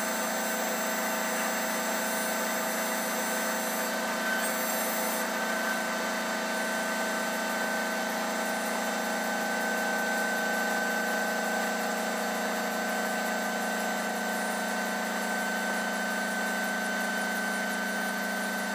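Offshore crane's engine and hydraulic power unit running steadily, heard from inside the operator's cab: a low hum under a constant high whine.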